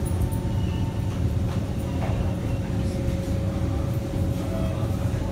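Kawasaki Heavy Industries C151 metro train running, heard from inside the passenger car: a steady low rumble with a constant thin tone over it.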